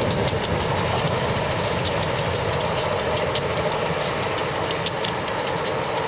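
Providence & Worcester diesel-hauled passenger train rolling by: a steady low diesel engine rumble with the wheels clicking over rail joints, many sharp clicks a second.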